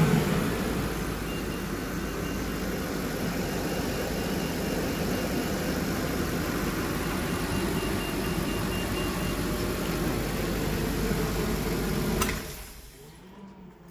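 GM 8.1-litre Vortec big-block V8 idling steadily just after being started, running smoothly on freshly installed solid-core plug wires. It is heard through the open engine cover in the cab and is switched off about twelve seconds in.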